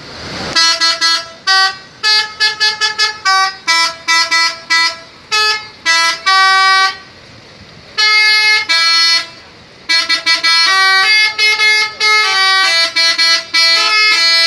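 Bus telolet horn playing a tune: a fast run of short and longer musical honks at changing pitches, with a couple of brief pauses. The horn is loud.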